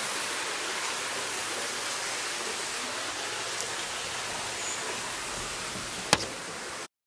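Steady rush of water spilling over from one swimming pool into a lower pool, with a single sharp click about six seconds in; the sound cuts off abruptly just before the end.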